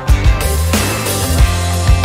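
Background music: a band track with a steady drum beat and bass.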